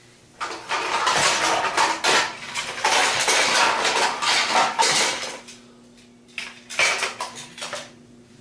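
Clattering and clanking of hard objects knocking together, like dishes or metal pieces, in a dense run of about five seconds, then a shorter burst of clatter near the end.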